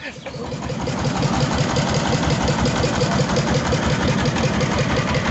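Small wooden fishing boat's engine running steadily under way, with a fast, even pulse; it grows louder over the first second.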